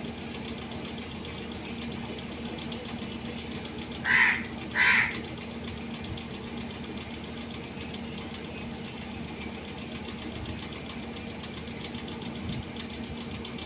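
Two short, loud, harsh animal calls about half a second apart, heard over a steady low hum.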